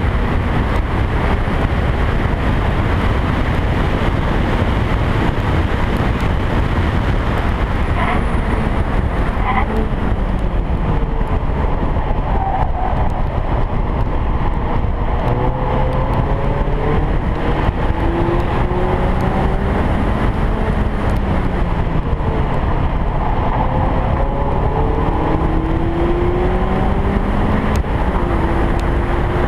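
Car lapping a race track at speed, heard from a camera mounted outside on the bodywork. Heavy wind rush fills the sound, and under it the engine note rises and falls repeatedly as the car accelerates and slows.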